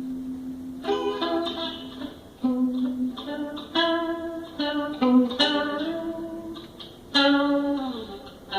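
Guitar improvising: single plucked notes and short groups of notes struck every half second to a second and left to ring, with a note bent downward in pitch near the end.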